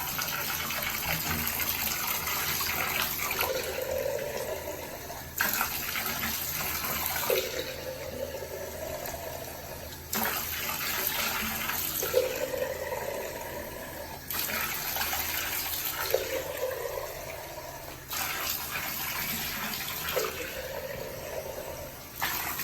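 Tap water running and splashing in a bath during a puppy's rinse. The splash changes abruptly about every two seconds, and a short rising tone follows several of the changes.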